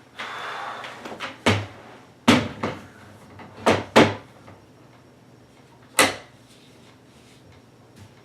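A kennel door being fitted into a Gunner G1 kennel's rotomolded plastic door frame: a scraping rustle, then about six sharp knocks and clacks as the door is set in place.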